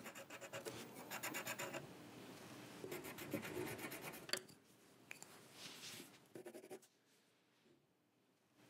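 Faint scratching of a pencil drawing on paper, in runs of quick strokes, with a small click a little past four seconds in; it fades out before the end.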